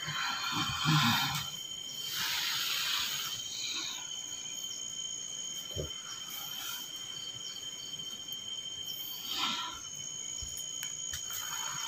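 Crickets chirping steadily, a thin high tone that runs under everything. Three loud, breathy exhalations break through it: one at the start, one about two seconds in, and a shorter one later on.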